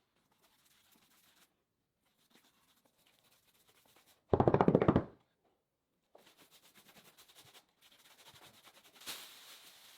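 Faint scraping and rubbing on wood from hand work, broken about four seconds in by a loud, rapidly pulsing buzz lasting under a second; the rubbing grows louder near the end.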